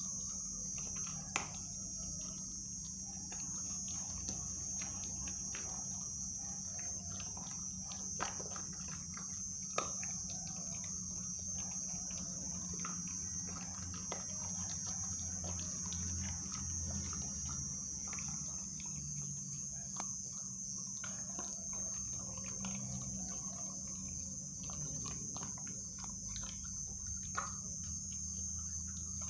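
Crickets chirring in a steady, high-pitched drone, with a low hum underneath. Now and then a short sharp click or crunch from a pit bull puppy chewing raw meaty food from its steel bowl.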